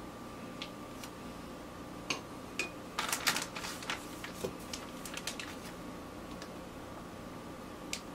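Light clicks and taps of a plastic measuring spoon scooping powdered sugar from its bag and tipping it into a glass bowl, with a short busier patch of scraping and rustling about three seconds in.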